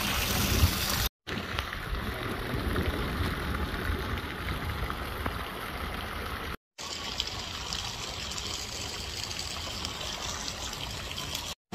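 Steady rush of running water at a pool, broken by two brief silences, about a second in and near the middle.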